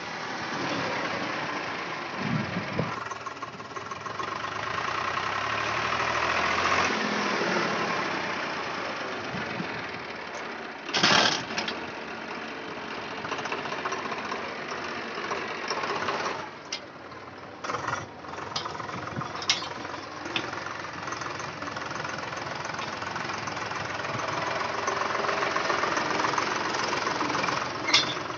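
Swaraj tractor's diesel engine running steadily as the tractor drives close past, pulling a tine cultivator. A loud short thump about eleven seconds in.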